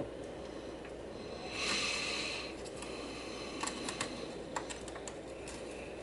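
Quiet hand desoldering at a circuit board with a soldering iron and desoldering braid: a brief soft hiss about a second and a half in, then a scattering of light clicks, over a steady low hum.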